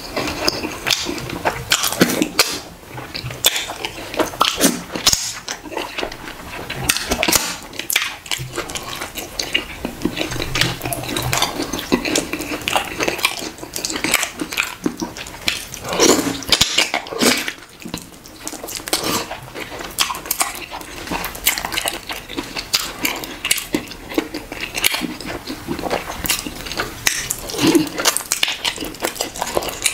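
Eating by hand: wet chewing, lip-smacking and sucking on pieces of meat and fufu dipped in slimy ogbono soup, a dense run of small wet clicks.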